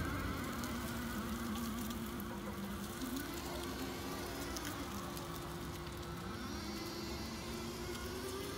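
Kalmar EC electric forklift driving, its motor whining. One tone holds steady while a second dips and rises in pitch a few times as the truck slows and speeds up.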